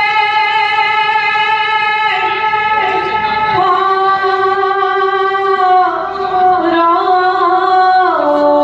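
A high solo singing voice performing a devotional bhaona song, holding long notes that step down in pitch several times across the phrase.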